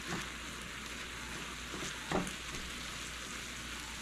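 Ground beef sizzling steadily in a pan on high heat as its liquid cooks off, with two light knocks, the louder one about two seconds in.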